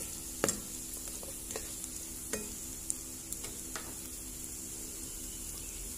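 Beetroot strips sizzling in oil in a frying pan while a spatula stirs them, knocking and scraping against the pan several times in the first four seconds.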